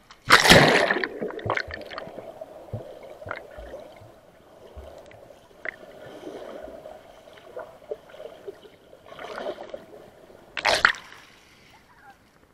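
Action camera plunged into the sea with a loud splash, then muffled underwater gurgling with small scattered clicks, heard through the camera's waterproof housing. A second loud splash about eleven seconds in as it breaks back through the surface.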